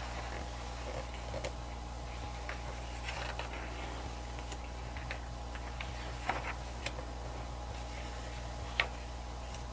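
Glossy pages of a photobook being turned by hand, with a few soft paper flicks and light clicks, the sharpest near the end, over a steady low hum.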